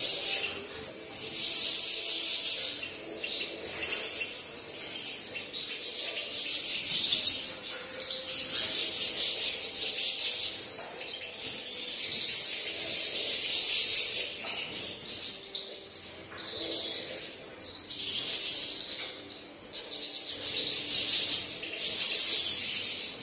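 Caged goldfinches bathing and chirping: high splashing and wing-fluttering with twittering calls, swelling and fading every few seconds.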